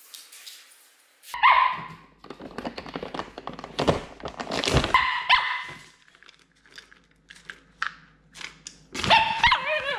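Shiba Inu giving short bark-whine calls that bend in pitch, about a second and a half in, around five seconds in, and again near the end. Between the calls, dry kibble clatters as it is scooped and poured into ceramic bowls.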